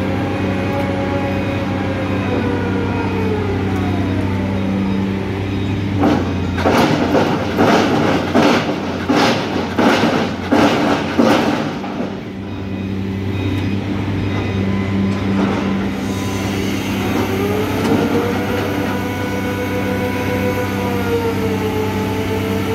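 Rotary piling rig's diesel engine running steadily, with a tone that falls away and later rises again. For several seconds in the middle comes a rapid run of loud metallic clanks and knocks as the drilling bucket is jolted to shake out its spoil.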